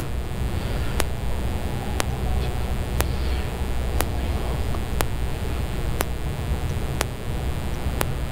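Steady low rumble with a faint hiss, and a faint sharp tick repeating once a second.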